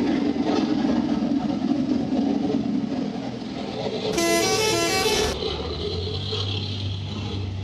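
A telolet horn, a multi-tone musical vehicle horn, plays a short stepping tune of a few notes for about a second, about four seconds in. Underneath runs the steady rumble of a heavy vehicle's engine.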